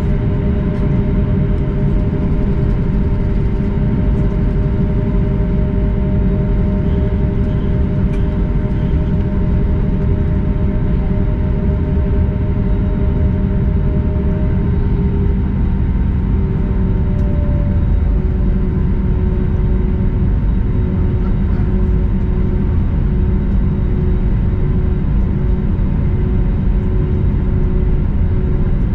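Cabin noise of an Airbus A320neo taxiing after landing: a steady low rumble from the engines at idle and the cabin air, with a couple of steady whining tones. About halfway through the tones shift in pitch, and one of them starts to pulse evenly.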